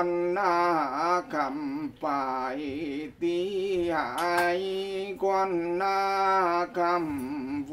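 A Mường shaman's male voice chanting the mo ritual recitation in the Mường language: long held notes that waver in pitch, in phrases separated by short breaths.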